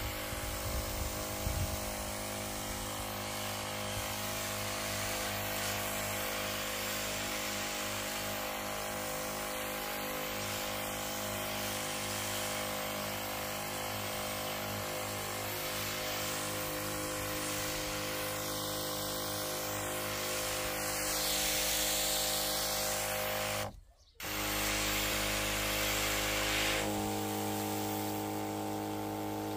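Parkside PRDSP 20-Li A1 cordless backpack sprayer's electric pump running at its high-power setting: a steady hum with the hiss of the mist from the spray lance. The sound drops out for a moment a little past the middle, and about three seconds later the pump's tone shifts.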